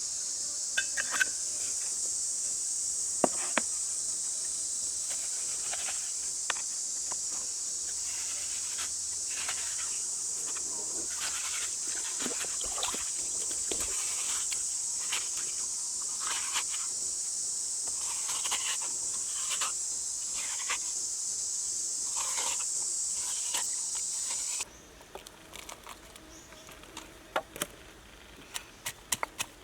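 Steady, high-pitched chorus of insects, with scattered short clicks and rustles over it. About 25 s in it cuts off abruptly, leaving a quieter background with a few sharp knocks near the end.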